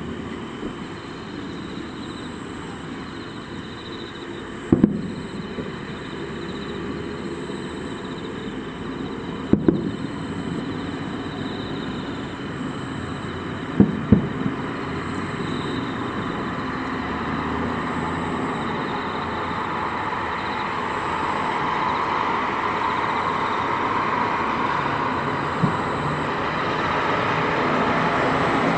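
Distant aerial firework shells bursting with sharp booms every few seconds, some in close pairs, over a steady background noise that slowly grows louder.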